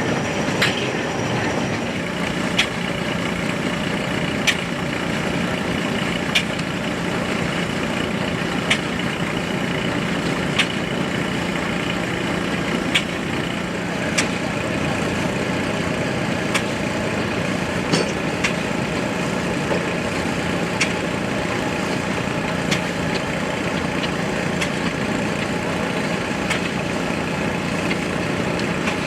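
Steam-powered antique sawmill machinery running steadily with a low hum, and a sharp click about every two seconds.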